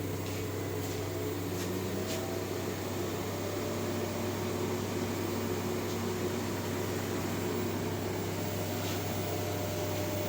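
Steady electrical hum and fan noise from a TIG welding setup with its water cooler running, with a few faint clicks in the first couple of seconds.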